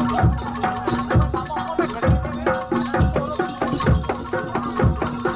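Jaranan Dor ensemble playing: a deep drum beating about once a second under quick hand-drum strokes and repeating metallic melodic notes, over a steady held tone.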